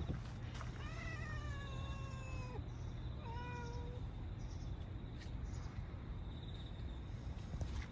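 Domestic cat meowing twice: a long, drawn-out meow falling in pitch, then a shorter meow about a second later, over a steady low rumble.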